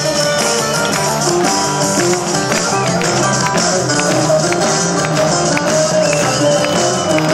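Loud music with a steady beat, and a crowd clapping along in time.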